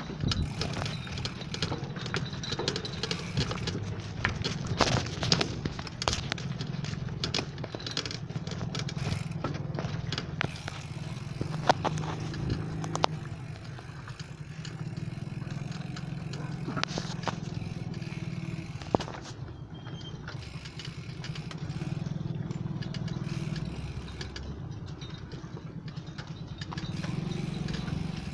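Mountain bike rolling over a rough, broken concrete path: a steady rumble with frequent rattles and clatter from the bike, and a few sharper knocks.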